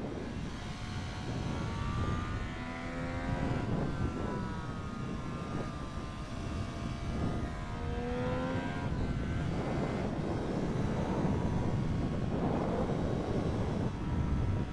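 Triumph Street Triple 765 RS's inline three-cylinder engine under hard acceleration, its pitch climbing twice through the revs, over heavy wind rush on the microphone.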